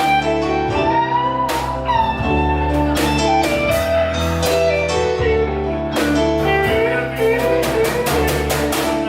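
Live blues band playing an instrumental break between sung lines, with a guitar lead playing bent notes over bass and drums.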